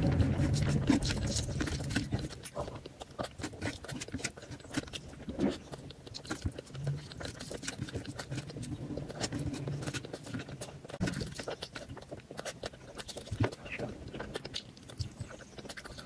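Close-miked wet, sticky squelching and many small clicks of fingers mixing rice into curry gravy by hand.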